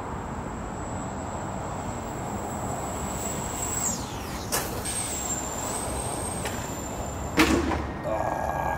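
A brushed-motor RC buggy converted into a ground effect vehicle speeds past on asphalt: a high, thin electric whine over tyre and wind noise. The whine shifts in pitch about four seconds in as the vehicle passes close by, and it ends with a sharp knock near the end.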